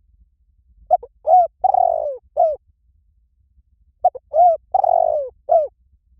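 Spotted dove cooing, two identical four-note phrases about three seconds apart, the third note of each drawn out longest. It is the cooing style Thai dove keepers call 'liu tan', used as a lure call to draw another dove into cooing back.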